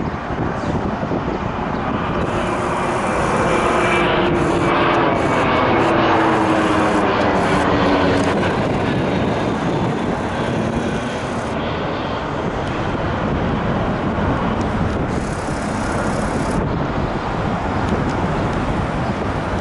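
Jet airliner passing low overhead on its landing approach, its engine tone falling in pitch as it goes by and loudest around six to eight seconds in, over steady wind noise on the microphone.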